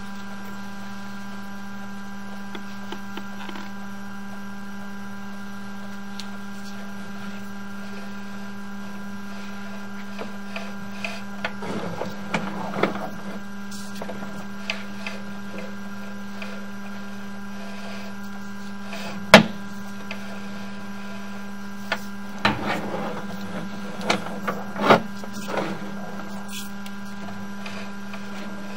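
Steady electrical hum from the sewer inspection camera system, with scattered clicks and knocks while the camera's push cable is drawn back; one sharp click about two-thirds through is the loudest.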